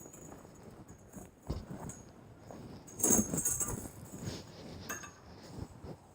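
Steel bandsaw mill blade being handled and coiled by hand, its loops clinking and rattling against one another in irregular bursts, loudest about three seconds in.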